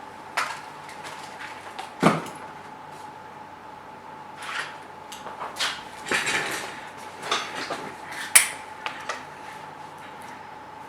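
Small hard tools and parts clicking, tapping and clinking on a workbench during a phone repair, in scattered knocks with the sharpest about two seconds in and near the end. A faint steady hum runs underneath.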